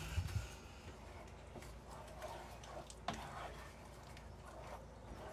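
A dog whimpering faintly a few times, with a few light knocks and clicks of kitchen things being handled.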